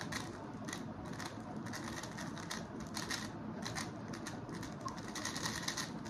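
An X-Man Tornado V3 M 3x3 speed cube being turned rapidly during a speedsolve: quick flurries of plastic clicks from the layers, densest near the end.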